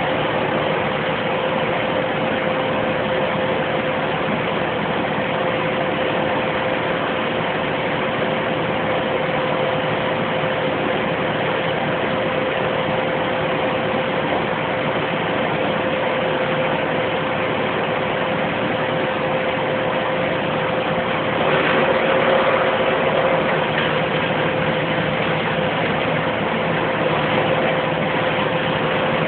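2008 Bandit 200 XP wood chipper running steadily, an even engine drone with a held hum. It grows briefly louder about 22 seconds in.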